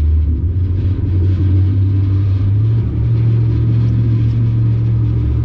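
Jet boat's inboard engine running with a steady low rumble, its pitch stepping up about two and a half seconds in as it picks up revs.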